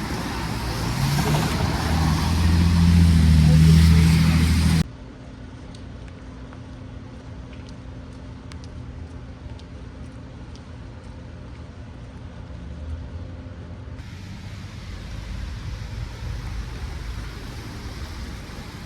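Downtown street traffic: a large vehicle's engine runs loud and close for the first five seconds, then the sound cuts abruptly to quieter, muffled traffic hum with light clicks, opening up again near the end.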